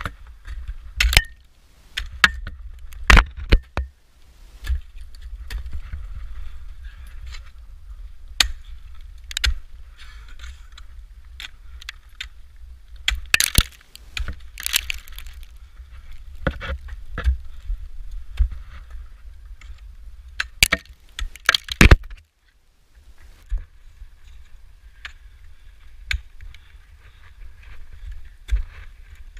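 Ice axes striking into waterfall ice, sharp single hits at irregular intervals, with the jingle of metal climbing hardware between them. A low rumble runs underneath and drops out briefly about two-thirds of the way through.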